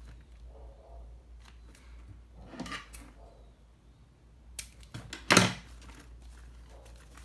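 Scissors snipping the edge of a lined synthetic-material bag, amid rustling and handling of the material. The loudest sound is a short, sharp burst a little past five seconds in.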